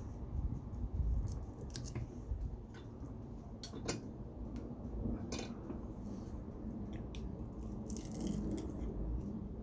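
Wire-cutter pliers gripping and snipping copper, with irregular sharp clicks and snaps of metal on metal over a low handling rumble.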